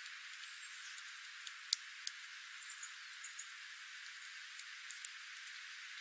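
Scattered sharp clicks and taps of jays pecking at seed and gravel on the ground, the loudest pair about two seconds in. Under them is a steady high hiss, with the low end filtered out.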